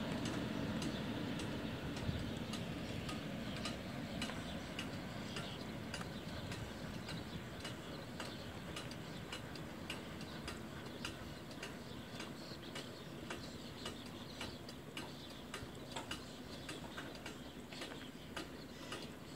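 Railway level-crossing bell ticking steadily about twice a second, as the crossing's barrier arm rises. Under it, the low rumble of the departing diesel-hauled train fades away over the first several seconds.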